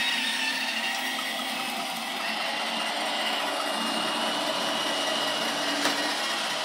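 iRobot Roomba 705 robot vacuum running: a steady whir of its suction motor and brushes with a high, thin whine over it. One short click about six seconds in.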